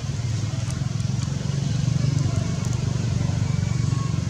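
Steady low hum of an engine running, with a few faint high ticks over it.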